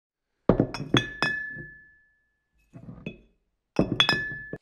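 Glass clinking in three quick clusters of sharp strikes, each cluster leaving a high ringing note that fades; the last cluster cuts off abruptly.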